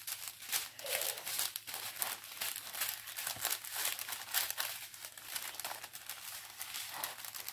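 Diamond painting canvas with its plastic cover film being refolded by hand: a steady run of crinkling and rustling.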